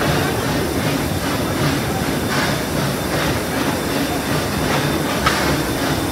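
Steam locomotive running at speed, its exhaust chuffing in a steady beat over the rumble and clickety-clack of the train's wheels on the rails. A single sharp knock stands out about five seconds in.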